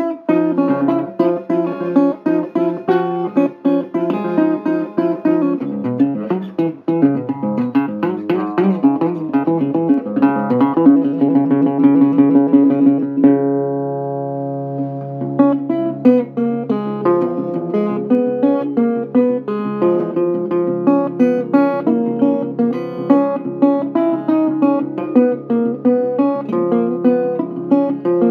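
Guitar instrumental music: quick runs of picked notes, a chord left ringing out for a couple of seconds about halfway through, then the picking picks up again.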